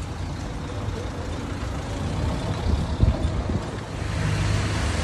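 Low, steady rumble of road and traffic noise heard from a moving open golf cart, with a sharp thump about three seconds in and the noise growing louder near the end.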